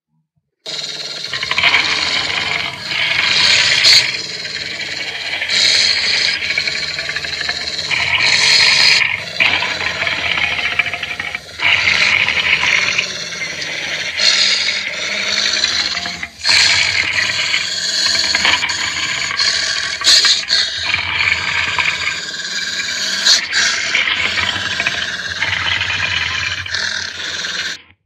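Custom monster sound effect: a long string of layered creature roars and growls, broken into several separate calls, built by mixing film dinosaur and monster roars with animal roars.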